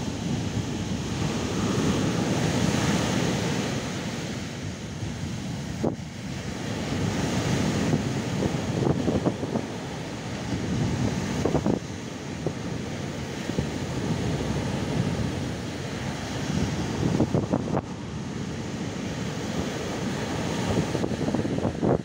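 Atlantic Ocean surf breaking and foaming up a sandy beach. The rushing noise swells and eases every few seconds as each wave breaks and washes in.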